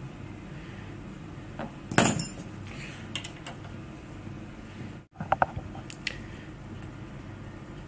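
Short metallic clinks and taps of an Allen key and small metal parts against the scooter's rear suspension bracket, in a few brief clusters, the loudest about two seconds in, over a steady low hum.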